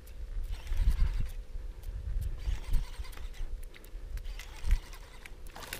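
Gusty wind rumbling on the microphone over open water, with a few light knocks and clicks of handling. A faint steady hum runs underneath and stops shortly before the end.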